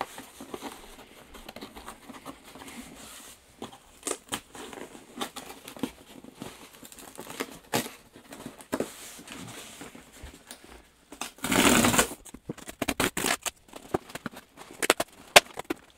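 Cardboard shipping box being handled and opened by hand: scattered clicks, scrapes and rustles of cardboard, with one louder tearing rip lasting under a second about three quarters of the way through.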